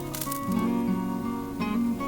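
Background music: acoustic guitar strummed and plucked.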